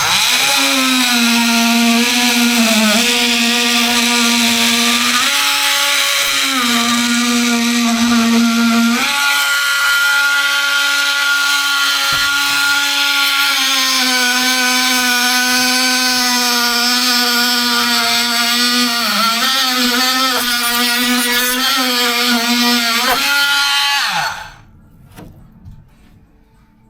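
Handheld power tool running continuously with a steady whine, its pitch dipping and rising as the load on it changes, then switched off about three seconds before the end.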